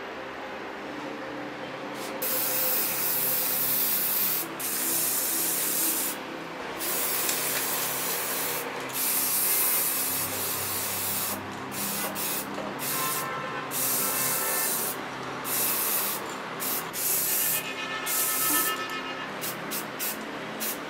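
Aerosol spray paint hissing in repeated bursts as green paint is sprayed onto an aluminium mess tin. The bursts are long at first, starting about two seconds in, then come short and in quick succession near the end.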